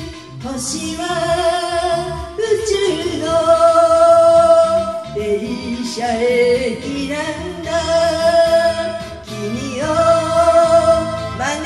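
A woman singing along with a karaoke backing track, in long held notes that slide up into each new phrase.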